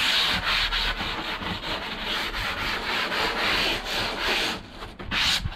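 Sheets of closed-cell polyurethane foam rubbing and scraping against each other and under a hand as a freshly cut piece is handled and lifted free. A quick run of short rasping strokes, with a louder scrape near the end.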